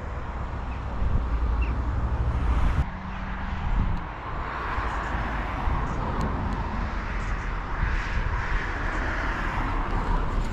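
Road traffic going past, with the tyre noise of cars swelling and fading every few seconds over a steady low rumble.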